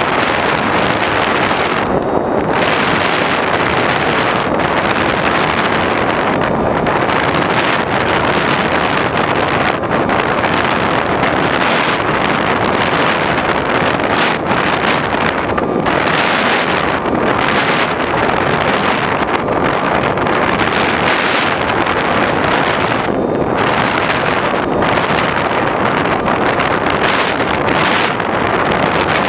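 Steady, loud rush of wind noise picked up by a GoPro riding on an X8 FPV flying wing in flight, the hiss briefly thinning every few seconds.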